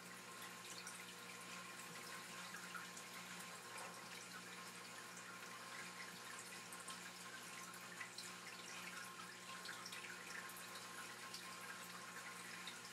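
Faint steady hiss and electrical hum, with scattered faint ticks: background room tone with no distinct sound event.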